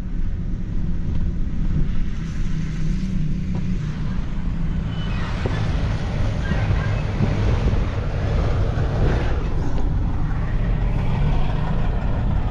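Pickup truck driving, a steady low rumble of engine and road noise.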